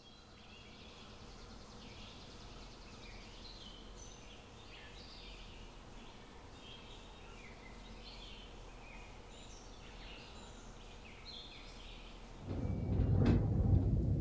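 Small birds chirping and singing faintly, many short calls over a quiet outdoor background. About twelve seconds in this gives way to louder room noise with a couple of knocks.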